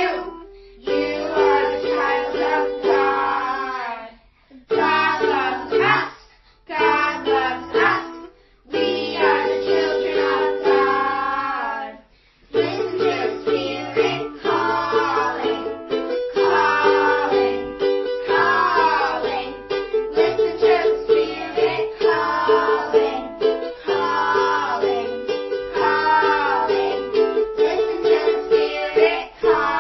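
Children's worship song sung to ukulele strumming, in short phrases with brief pauses at first, then continuously from about twelve seconds in.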